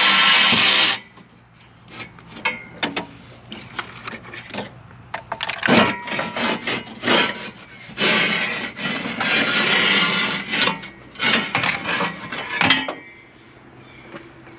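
A cordless power tool runs for about a second, loosening an exhaust header bolt, then a rusty steel tube header scrapes, rubs and clanks against metal as it is worked out of the engine bay, in several scraping stretches.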